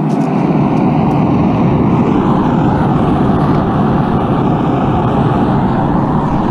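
Forge running with a steady rushing noise while metal stock heats in it.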